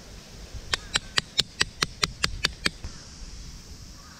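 A brass-headed VASTLAND short peg hammer striking a metal tent peg into the ground: a quick run of about ten sharp strikes at roughly five a second, stopping a little before three seconds in.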